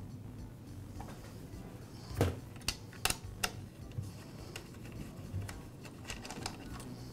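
Light clicks and taps from hand-removing screws on a power saw's plastic handle housing, with a cluster of four sharp clicks about two to three and a half seconds in.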